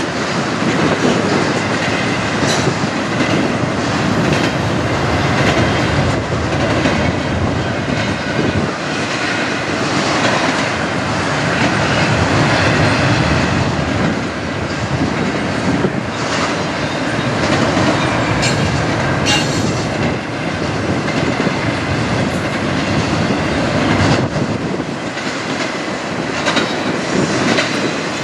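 Double-stack intermodal freight train rolling past at steady speed: a continuous rumble of steel wheels on rail with clacking over rail joints, and brief high wheel squeals, one near the start and one about two-thirds through.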